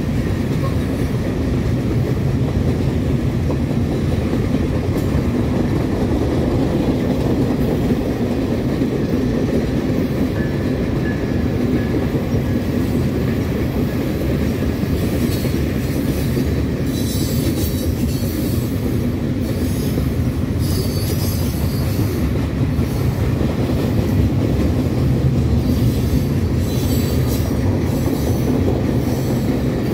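CSX mixed manifest freight train's cars rolling past: a steady rumble and clatter of steel wheels on rail. Spells of high-pitched wheel squeal come and go through the second half.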